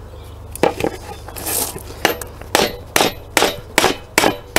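Lump hammer tapping the steel Nato tow hitch, driving its greased locking mechanism into place. A couple of knocks and a brief scrape, then from about two seconds in a steady run of sharp blows, about two and a half a second.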